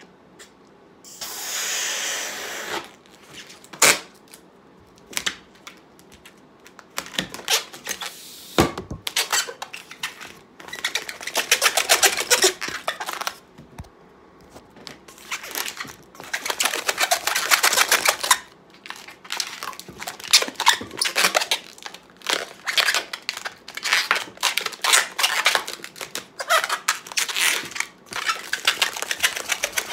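Long yellow latex twisting balloon being inflated and handled: rushing air in stretches, with many irregular rubbery squeaks and rubs of hands on the latex.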